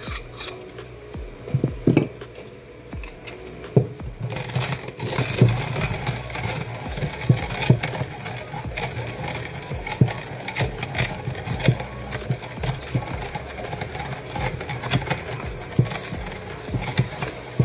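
Timemore C2 hand coffee grinder's stainless-steel conical burrs crunching coffee beans as the handle is cranked, set to the finest espresso setting. A few handling knocks come first, and the dense crunching starts about four seconds in.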